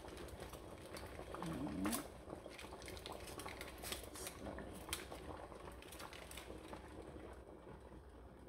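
Water simmering in a stainless-steel pan, with light clinks and foil crinkling as foil-covered flan molds are set down in it; the sharpest clink comes just before two seconds in.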